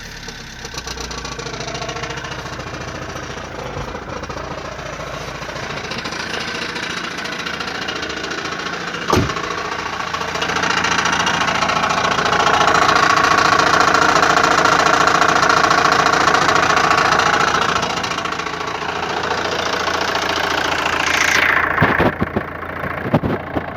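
Opel Astra H 1.7 CDTI four-cylinder turbodiesel running at idle, with a louder, higher-pitched noise joining it for about seven seconds in the middle. There is a sharp click about nine seconds in and a few more near the end. This is the strange noise the owner reports the car making at start-up.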